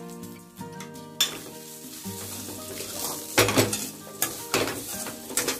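A spoon stirring and scraping flattened-rice upma in a hot pan, with a sizzle. A run of sharp knocks against the pan comes in the second half.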